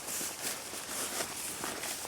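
Faint gritty scraping and crackling of sediment inside a Glock pistol as it is handled, grit grinding in the action.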